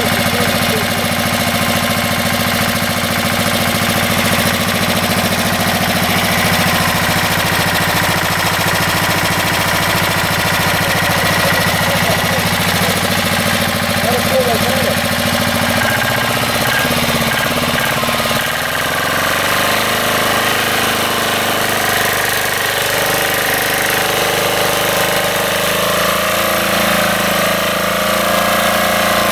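Two-wheel walking tractor engine running steadily while pulling a loaded trailer through deep mud. About halfway through, its note shifts and then rises and falls as the load changes.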